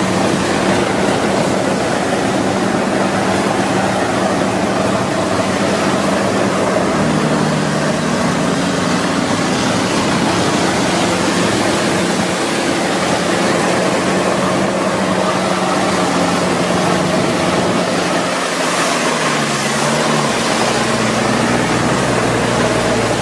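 Sherp amphibious ATV's diesel engine running under load, its note shifting down and up in steps several times, over a constant rush of its big low-pressure tyres churning through slush and water on ice.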